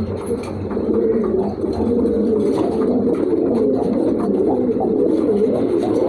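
Domestic pigeons cooing, many at once: a steady, low chorus of overlapping coos.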